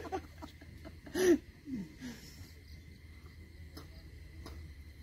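A man's brief wordless vocal sound, like a grunt or short exclamation, about a second in, then a couple of softer short vocal sounds. After that there is only quiet outdoor ambience with a low steady rumble and a few faint clicks.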